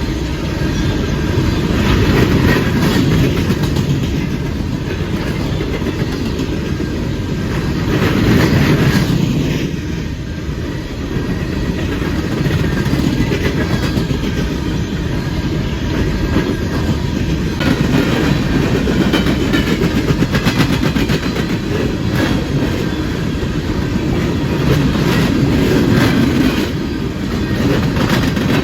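Empty coal train's cars rolling past on the siding, the wheels clicking over the rails in a steady clickety-clack under a continuous rumble that swells and eases every few seconds.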